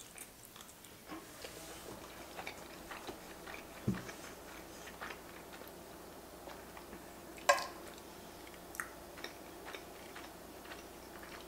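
A person chewing and biting a mouthful of giant fusilli pasta in a creamy sauce, with many small wet mouth clicks. A metal fork scrapes and clinks against the enamelled pan, and one sharp clink, the loudest sound, comes a little past halfway.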